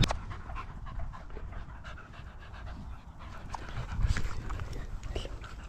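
A Border Terrier panting close by, louder from about four seconds in. Wind rumbles on the microphone throughout.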